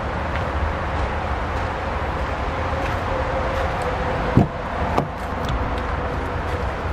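Two sharp clicks about half a second apart, a little past halfway: the driver's door of a 2017 Toyota Tacoma being unlatched and swung open. Under them, a steady low outdoor rumble.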